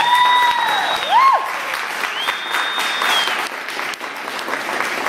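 An audience clapping and cheering as a performance ends, with a few long, high-pitched whoops in the first three seconds.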